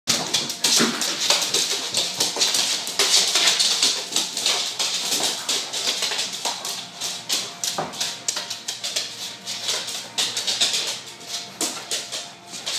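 A black Labrador's claws clicking and scrabbling on a hardwood floor as it shoves and mouths a giant tennis ball: a rapid, irregular clatter of ticks and scratchy scuffs.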